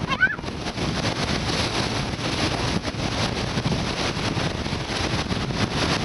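Wind buffeting the microphone and sea noise aboard a moving motor ship, as a rough, even rush. A couple of short high rising calls come right at the start.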